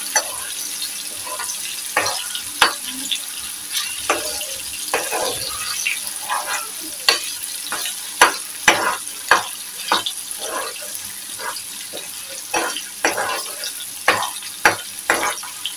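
Chopped onions, tomatoes and slit green chillies sizzling in hot oil in a frying pan, the tempering for dal. A metal ladle stirs and scrapes against the pan in frequent, irregular sharp clicks.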